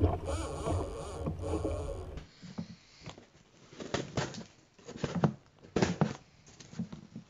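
A short logo intro sound with a deep rumble for about two seconds. Then scissors slice the packing tape on a cardboard shipping box, with irregular scratchy crackles and taps of the blade on tape and cardboard.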